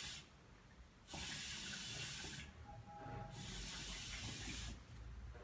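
Acrylic single-hose hookah with a stainless-steel silencer being puffed through the hose: two soft hisses of drawn air, each about a second and a half long, beginning about a second in and again past the middle. The silencer damps the water bubbling down to a quiet rush.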